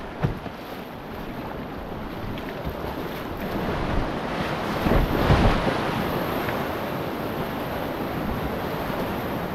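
Whitewater of the Potomac River rapids at Great Falls rushing steadily, with wind buffeting the microphone. A sharp knock comes just after the start, and the water swells louder about five seconds in.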